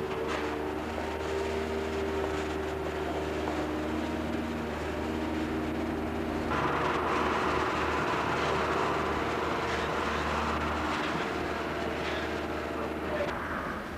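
Street traffic noise: a vehicle engine drones steadily, and a hissier rush joins it about six and a half seconds in.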